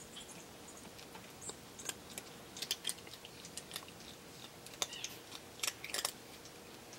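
A cat crunching dry kibble from a plastic gravity-feeder bowl: faint, irregular crunches and clicks that come in small clusters, the thickest a little before the middle and again just before the end.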